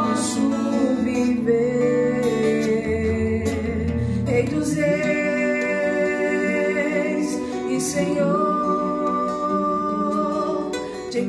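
Live acoustic worship music: a woman singing long held notes over strummed acoustic guitar and bowed cello.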